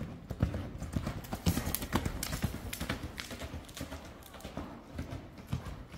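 Hoofbeats of a horse cantering on soft arena dirt: a quick, uneven run of dull thuds.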